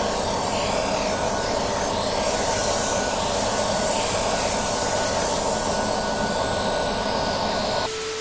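Steady, loud hiss of TV static. Near the end it cuts off abruptly to a single steady test tone.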